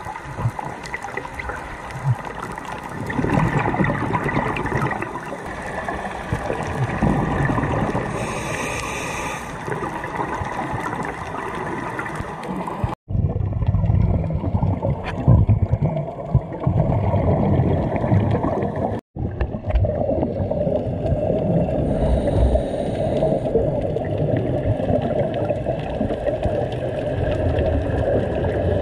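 Underwater sound of scuba diving, heard through a camera housing: a steady gurgling rumble of regulator exhaust bubbles and water noise. It drops out for an instant twice, about halfway through and again a few seconds later.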